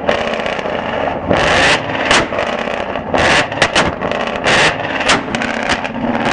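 Ford Mustang 5.0 V8 with Borla exhaust held at high revs, with repeated sharp pops and bangs out of the tailpipe. Near the end the exhaust blasts apart a pumpkin set against the tip.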